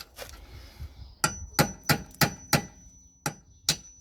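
Hammer striking a punch to drive the brake caliper's pad retaining pin out. About seven sharp metal blows come roughly three a second, starting about a second in, with a thin high ring lingering between them.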